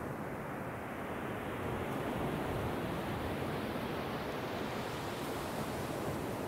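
Ocean waves breaking and washing up a sandy beach: a steady rush that grows brighter and a little louder over the first few seconds.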